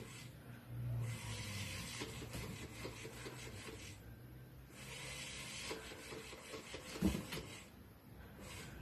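Small battery-powered cat toy with a laser light, running with a low hum and scraping over a wooden floor in stretches that start and stop, with light ticking and one soft knock about seven seconds in.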